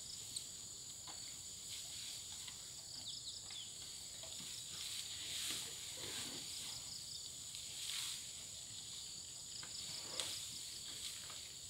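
Rainforest insects chirping in a steady high-pitched chorus, with a few faint rustles now and then.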